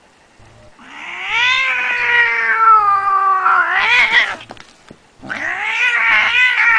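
Cornish Rex cat yowling in two long, drawn-out calls. The first lasts about three seconds and wavers in pitch near its end; the second starts about five seconds in.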